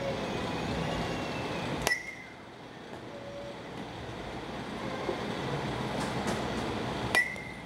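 A baseball bat striking a tossed ball twice, about five seconds apart, each hit a sharp crack with a short ringing ping, over the steady noise of the batting-cage hall.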